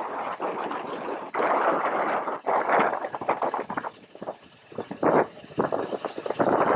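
Wind buffeting the microphone of a helmet-mounted action camera on a moving motorcycle, a gusty rushing that swells and fades. It drops away about four seconds in, then returns in short puffs.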